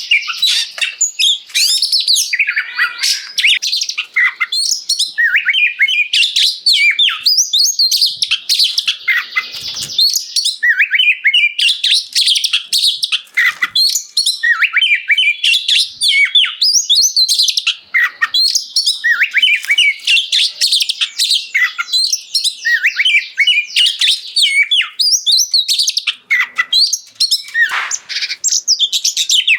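Oriental magpie-robin (kacer) singing loudly: a fast, nearly unbroken stream of varied whistled and chattering notes with quick rising and falling glides, broken only by a few brief pauses.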